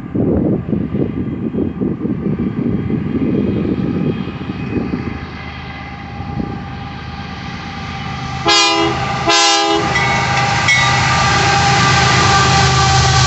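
Wind buffets the microphone while a BNSF diesel freight train approaches, its engine sound building. About two-thirds of the way through, the locomotive's multi-chime air horn sounds two short blasts, then the lead diesel locomotives run loud and steady as they pass close by.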